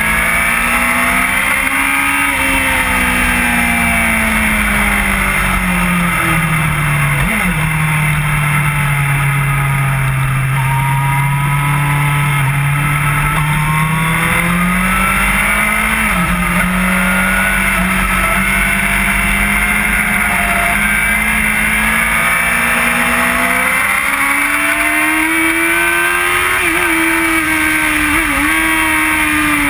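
Onboard sound of an inline-four sportbike engine at speed. Its pitch sweeps down and up with the revs, with quick gear changes about a quarter of the way in and again near halfway, over constant wind rush on the camera.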